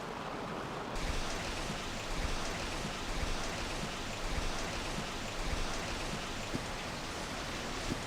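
Water rushing and splashing as it flows down the mill's head race and pours into the buckets of the breast-shot water wheel, a steady spattering noise that grows a little louder and brighter about a second in.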